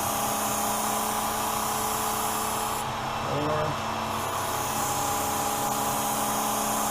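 Work Sharp Ken Onion Edition belt sharpener's electric motor running steadily. A blade is ground against the moving abrasive belt with a hissing grind that breaks off about three seconds in and resumes a second later.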